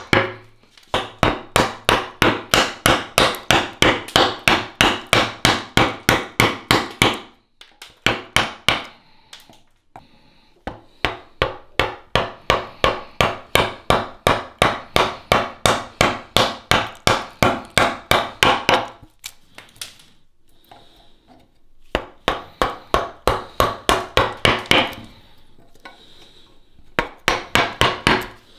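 Wide flat woodcarving chisel driven into a wooden post by quick mallet taps, about four a second. The taps come in runs of several seconds with short pauses between.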